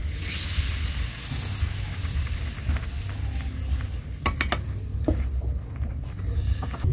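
Rice-flour batter sizzling as it is poured onto a hot cast-iron waffle iron over a charcoal stove. A few sharp metal clicks come a little past halfway as the iron is shut.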